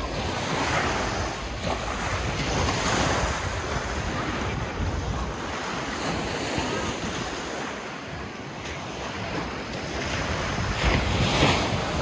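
Small waves of the Black Sea breaking and washing up a sandy shore in slow swells, one louder wash near the end, with wind buffeting the microphone.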